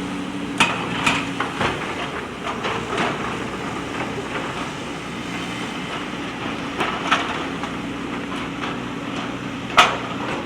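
JCB backhoe loader's diesel engine running steadily, with sharp metallic clanks and knocks every second or so, the loudest near the end.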